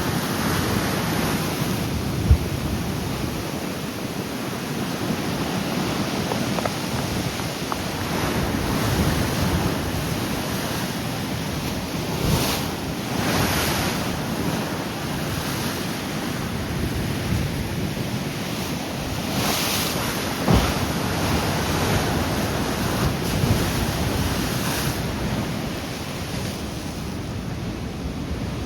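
Rough sea surf breaking in a continuous rush, swelling several times as bigger waves crash, with wind buffeting the microphone and two sharp thumps of wind blasts.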